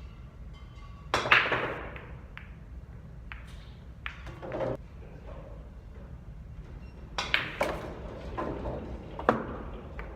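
Pool balls clacking: cue-ball strikes and ball-on-ball collisions, with balls dropping into pockets. Two loud shots come about six seconds apart, with softer knocks and rolling between them and a last sharp clack near the end.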